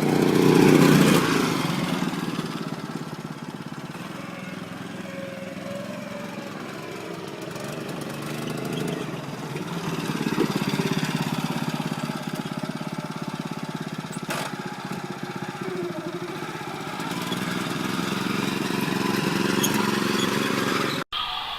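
Small go-kart engine running, loudest as it revs up about a second in, then running steadily with its speed rising and falling.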